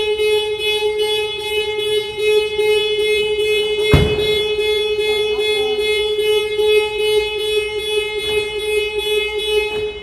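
Honda Jazz anti-theft alarm going off: the car's horn sounding in rapid, evenly repeated pulses, set off by opening a door while the car is locked and armed. A single thump about four seconds in, and the alarm cuts off just before the end.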